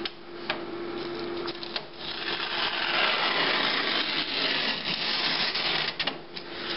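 Snap-off utility knife slicing across a sheet of printer paper from the roll: a long scratchy rasp from about two seconds in until near the end, after a few short clicks and paper rustles.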